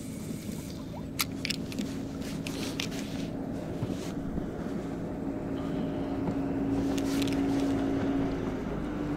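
Small outboard motor on an inflatable boat running at low speed, a steady drone that grows louder in the second half and steps up slightly in pitch near the end. A few sharp clicks sound over it in the first half.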